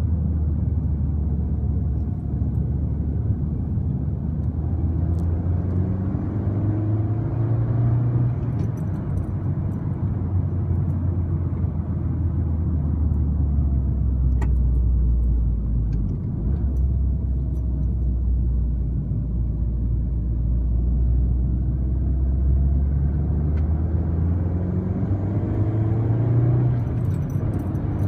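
In-cabin sound of a 2013 MINI John Cooper Works' turbocharged four-cylinder engine and road noise at track speed: a steady low drone whose pitch climbs under acceleration about a quarter of the way in and again near the end, with a sudden change in the note a little past halfway.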